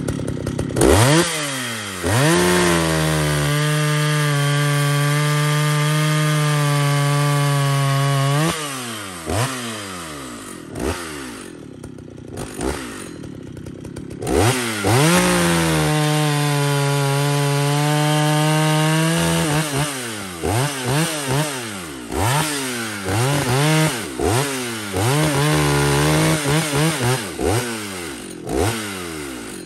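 Vintage Jonsered 920 two-stroke chainsaw revving up and held at full throttle through two long cuts in green wood, dropping back to idle between them, then blipped up and down in short bursts about once a second near the end. The carburettor is set rich.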